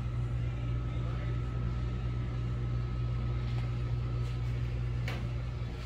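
Steady low mechanical hum with a faint high whine above it, and a single sharp click about five seconds in.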